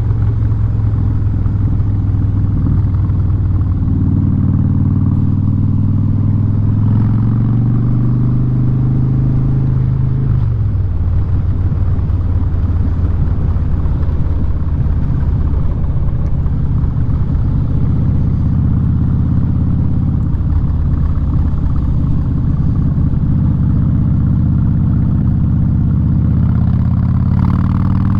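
Harley-Davidson Street Bob V-twin running loud through a Vance & Hines aftermarket exhaust while being ridden. The engine note holds steady, drops about ten seconds in, then climbs again near the end.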